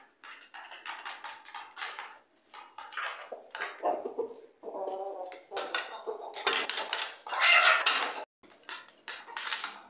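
Chickens pecking grain from shallow plastic feed plates, beaks tapping rapidly and unevenly on the plastic, with a few short clucks. The pecking is densest and loudest about six to eight seconds in.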